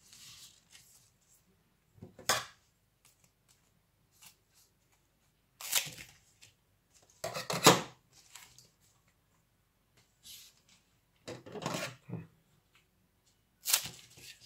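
Scissors snipping through a bundle of pandan leaves: about five crisp cuts at irregular intervals of a few seconds, with fainter leaf handling between.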